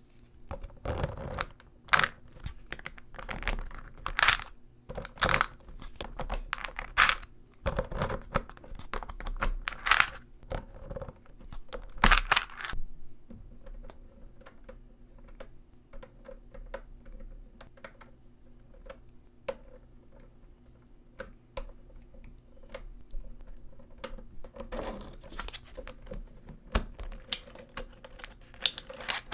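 Small magnetic balls clicking and snapping together as they are handled and pressed into place with plastic cards: irregular sharp clicks, dense and loud for the first dozen seconds, then sparser and lighter.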